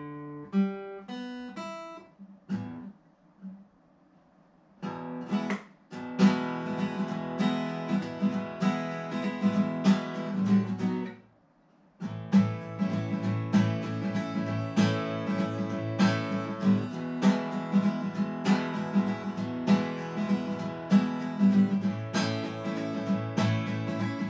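Acoustic guitar music: a few single plucked notes, a short near-silent pause, then steady strummed chords that break off briefly about halfway before resuming.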